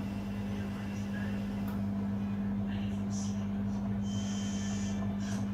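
Hoover Link and Samsung washing machines running mid-cycle on a rapid 30-minute wash: a steady low hum, with faint brief higher sounds scattered over it.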